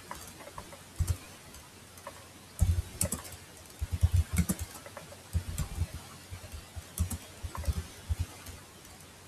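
Typing on a computer keyboard: irregular bursts of keystrokes with short pauses between them, stopping about a second before the end.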